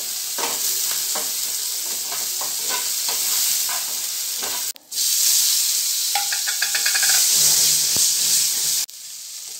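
A ghee tempering of cumin, red and green chillies and ginger sizzling in a non-stick frying pan while a spatula stirs and scrapes it. After a brief break about five seconds in, the sizzle comes back louder as the pan flares up in flames, then drops off sharply near the end.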